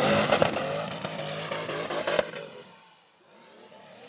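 Off-road buggy's engine revving hard under load on a loose dirt slope. It cuts off abruptly about two seconds in.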